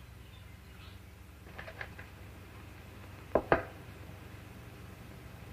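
A spoon stirring in a mixing bowl, clinking lightly against it a few times, then two sharp clinks close together about three and a half seconds in.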